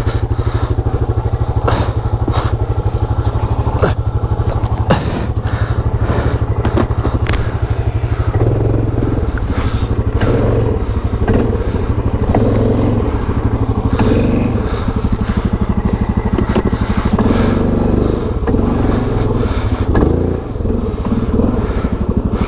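Yamaha Grizzly 700 ATV's single-cylinder engine pulling hard as the quad works its way up a snowy slope after getting stuck, with knocks and scrapes of snow and branches against the machine. From about eight seconds in the engine note rises and falls as the throttle is worked and the tyres throw snow.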